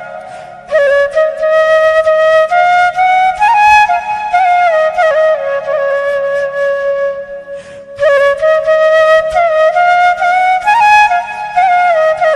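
Bansuri (bamboo flute) playing a slow, ornamented folk-style melody with sliding notes. It breaks for a breath about seven and a half seconds in, then picks up again.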